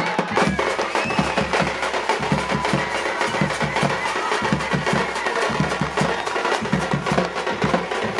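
Live festival drumming: a fast, dense, steady beat, with a high wavering melody line over it near the start.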